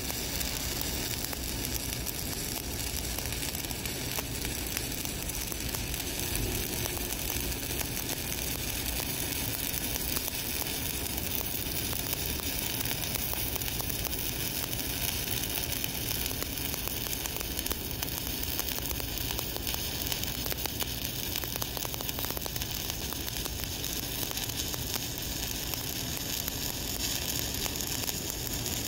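Shielded metal arc (stick) welding with an E7018 electrode at 135 amps: the arc gives a steady, unbroken sizzling crackle as the root pass of a horizontal groove joint is laid.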